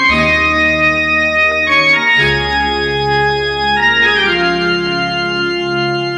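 Sustained organ-like keyboard chords over a low bass, changing chord about every two seconds, with no flute melody yet.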